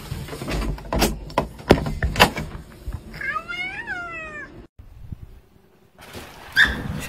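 A few knocks and thumps as a door is opened, then a ginger cat meows once in greeting: one long call that rises and then falls in pitch.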